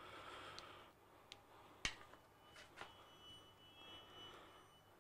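Near silence: room tone with a few faint clicks and taps, the sharpest about two seconds in, and a faint high whine through the middle.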